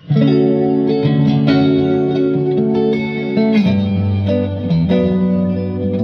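Electric guitar played through a Bludotone Joyeuse 20th Anniversary tube amplifier head, starting suddenly with a chord and going on through ringing chords that change about every half second.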